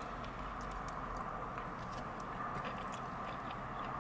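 A person biting into and chewing a foil-wrapped burrito: soft mouth sounds with small scattered clicks over a steady background hum.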